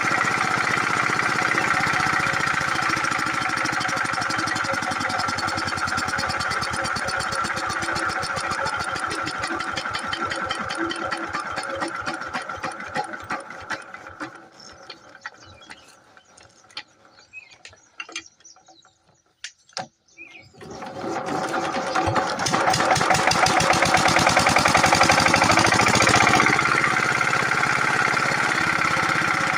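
8 hp diesel water-pump engine running with a rapid, even chugging, then slowing and dying down about halfway through, with a few last widely spaced knocks. After a brief lull it fires again and picks up to full running speed.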